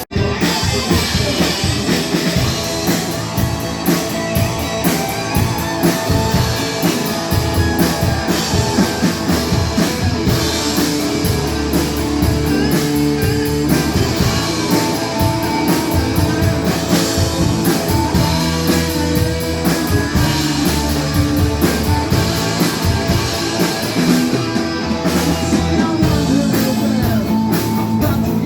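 A rock band playing live, with guitar and drum kit.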